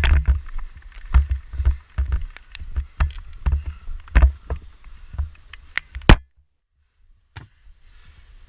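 Footsteps of a walking airsoft player with clicks and clatter from his gear, the thumps coming about twice a second. A loud sharp click about six seconds in, then the sound cuts off for about a second before a faint hiss returns.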